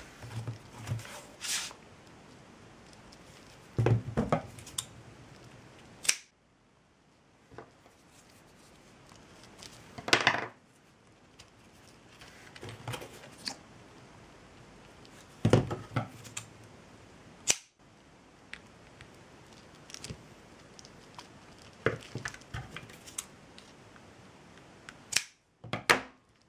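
Hands working jute-cord ribbons: scattered short clicks and brief rustles a few seconds apart, with quiet room tone between.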